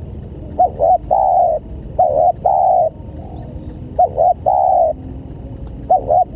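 Spotted dove cooing: a repeated phrase of two short notes followed by a longer held coo, about every two seconds, three times, with a fourth beginning near the end.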